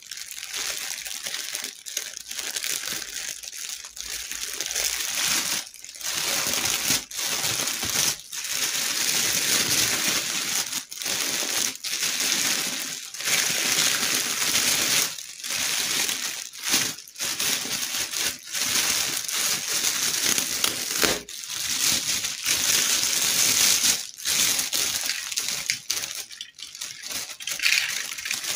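Clear plastic bag crinkling and rustling as hands squeeze and handle it, in a near-continuous run broken by many brief pauses.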